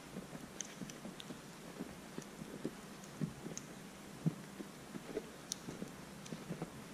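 Footsteps crunching softly in fresh snow, one step after another at a walking pace, with a few faint high ticks.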